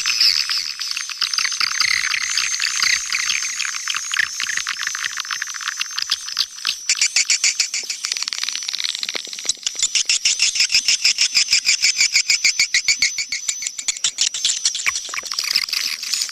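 Swiftlet call recording of the kind used to lure swiftlets to a nesting house: many swiftlets twittering together in dense, rapid, pulsing chirp trills. The pulsing is strongest and most even through the middle and latter part.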